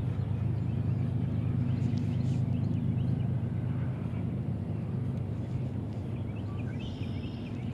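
A steady low motor hum with faint, scattered chirps of small birds above it.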